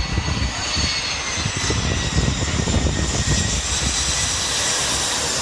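Airbus A340's four jet engines on final approach, passing low overhead: a steady rushing roar with a thin high engine whine. Wind buffets the microphone.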